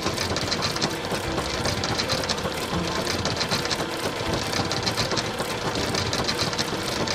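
Car shredder running, its two round shafts grinding up an old car: a steady mechanical rattle made of fast, even clatter.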